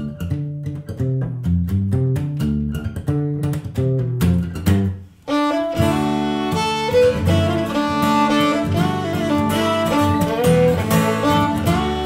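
Instrumental duo of violin and acoustic guitar. The guitar plays a rhythmic picked figure with low bass notes, and after a short break about five seconds in, the violin takes up a bowed melody over the guitar.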